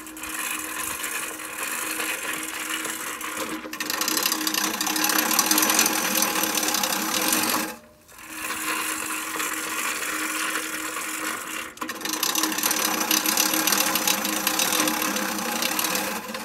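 Manual push reel mower being pushed through tall grass and clover, its spinning reel blades whirring and chopping against the cutting bar. It stops briefly about four, eight and twelve seconds in as it is pulled back and pushed forward again.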